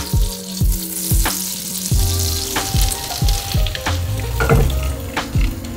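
Melted butter sizzling and foaming in a hot non-stick frying pan, with beaten egg poured in partway through, over background music with a steady beat.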